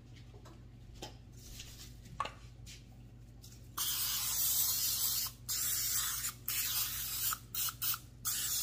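Aerosol cooking spray hissing from the can onto a ceramic baking dish: a string of spurts starting about four seconds in, the first about a second and a half long and the later ones shorter. A couple of light knocks come before it.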